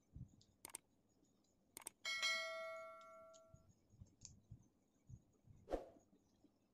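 Subscribe-button sound effect: two mouse clicks, then a bright bell ding that rings out for about a second and a half. Around it are soft eating and finger-licking sounds, with a sharper smack near the end.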